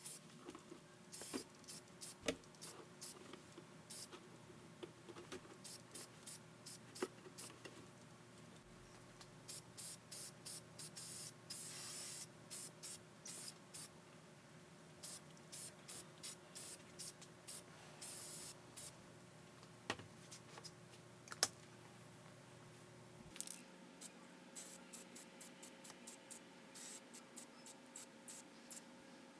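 Hands working on a vintage toy typewriter's small metal parts: irregular light clicks and taps, with a few short hissing or brushing bursts. The clicks come thick and fast in runs near the middle, over a faint steady hum.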